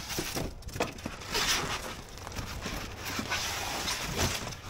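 Styrofoam packing and cardboard rustling and scraping in uneven bursts as pieces are pulled out of a shipping box, over a steady wind rumble on the microphone.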